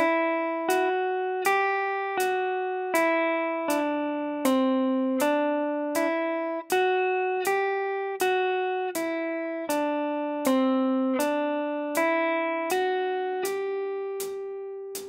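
Semi-hollow electric guitar playing a descending G major scale pattern, one plucked note about every three-quarters of a second. Open strings mix with close intervals on adjacent strings, so each note rings on under the next. The last note is held and rings out near the end.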